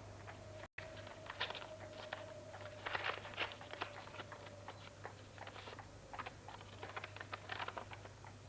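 Paper crackling and rustling in irregular small clicks, as an envelope is opened and a letter unfolded, over a low steady hum. The sound cuts out completely for an instant under a second in.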